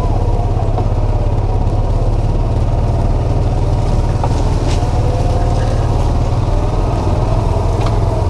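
Hunting buggy's engine running with a steady low rumble, heard from on board the moving vehicle.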